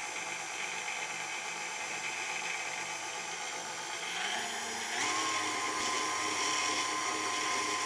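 KitchenAid Artisan stand mixer running steadily, its motor humming as the wire whisk beats egg whites and sugar into a foam while a yolk is worked in. About four to five seconds in the pitch rises and the mixer gets louder.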